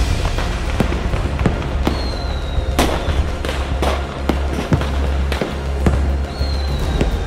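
Firework sound effects, with repeated bangs and crackles and two whistles that each fall slightly in pitch, over music with a heavy bass.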